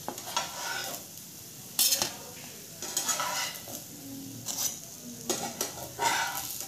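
Stainless steel slotted spatula scraping and clinking against a nonstick frying pan and a steel plate as shallow-fried kababs are lifted out one by one, several sharp strokes over a low sizzle of hot oil.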